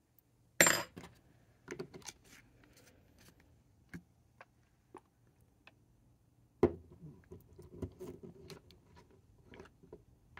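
Clinks and knocks of a glass ink bottle and its cap being handled on a tabletop, with two sharp knocks, one about half a second in and one about two-thirds of the way through, and softer taps between.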